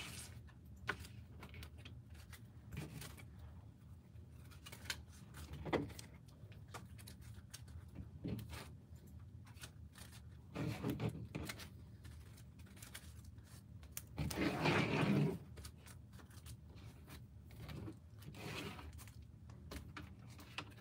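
Faint handling noise of trading cards being gathered and sorted: scattered light clicks and rustles, with two brief louder rustles about ten and fourteen seconds in.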